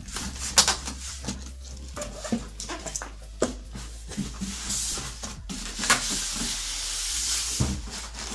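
Large cardboard box being handled and slid off a polystyrene-packed computer: scattered knocks and rustles of cardboard, then a longer sliding scrape from about five to seven and a half seconds in.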